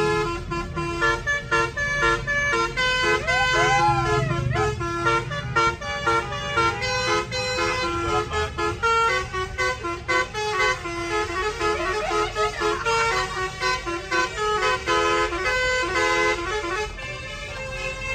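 A bus's telolet musical air horn (basuri) playing a tune of quick stepped notes that run on without a break, with people's voices around it.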